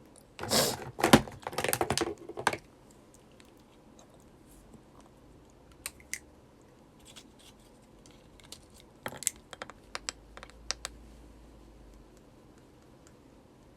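A young woman sneezing: a quick run of hard, noisy bursts in the first two and a half seconds, the sharpest about a second in. Scattered light taps and clicks follow, a small cluster of them near the end.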